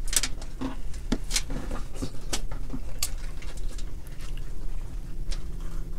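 Cooked crab and lobster shells being cracked and pulled apart by hand: a scattered string of sharp cracks and snaps, busiest in the first three seconds.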